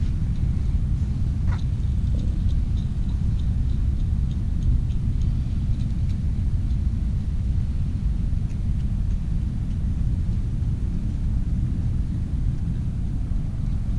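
Steady low rumble of passing road traffic, with a few faint light ticks in the first few seconds.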